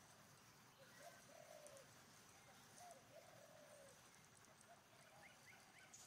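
Faint birdsong in the trees: low cooing calls repeated several times, then a few quick high chirps near the end, over a faint high hiss of forest ambience.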